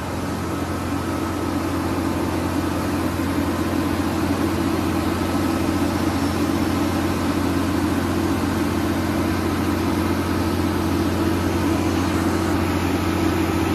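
Disc wood chipper with a forced feed running steadily under load: a constant low machine hum with an even rushing noise over it, without separate knocks or bangs.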